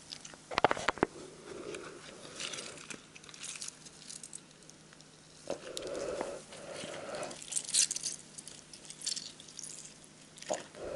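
Lemon squeezed by hand over a plastic bowl of raw fish pieces: soft crackling and squelching of the fruit and hands. A cluster of sharp knocks comes about half a second in.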